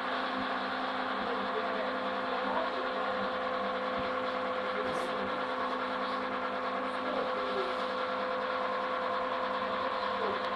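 A motor running steadily: a constant hum with several fixed tones over an even noise, unchanging throughout.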